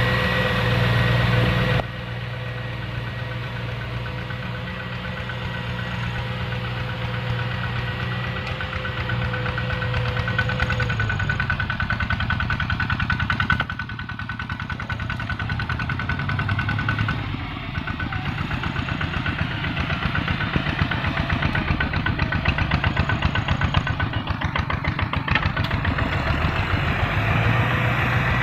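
Farm tractor diesel engine running steadily under load, pulling a disc plough.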